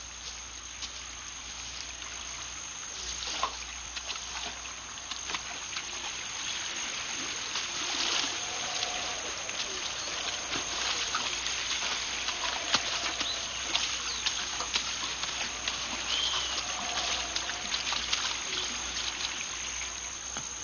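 Running water with footsteps splashing through a shallow river, and scattered faint animal calls.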